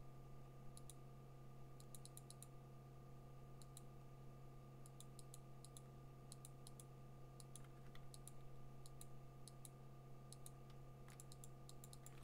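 Faint, sharp clicks of a computer keyboard and mouse, coming singly and in quick little runs of three to five, over a steady low hum.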